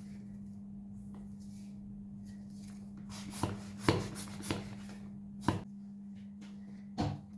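Hands handling a rubber balloon, giving five sharp taps spread over about four seconds, the loudest around the middle, over a steady low hum.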